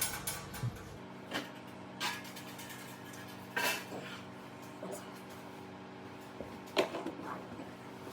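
Scattered clicks and clanks of metal parts and tools being handled while a diesel heater is taken apart, with a few louder knocks, over a steady low hum.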